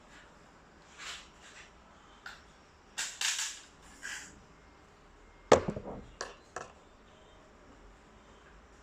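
Spring-powered bolt-action airsoft rifle with a PDI M140 spring: a few clicks and rattles of handling, then a single muffled shot about five and a half seconds in, the loudest sound, followed by a few lighter clicks.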